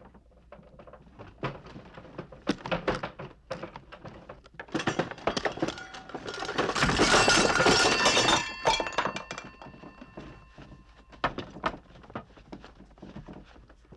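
Knocks and clattering as an old telephone is worked on and pulled apart, building about five seconds in to a loud crash of breaking parts with a metallic ringing that hangs on for a few seconds, then scattered knocks.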